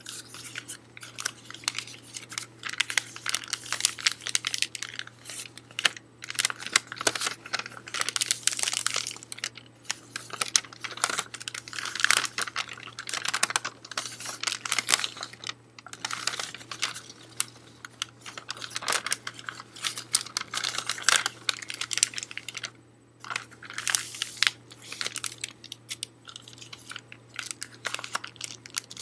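Sheet of Christmas wrapping paper being crumpled, rustled and folded by hand: a continuous run of crisp crackles and crinkles, with short lulls near the end.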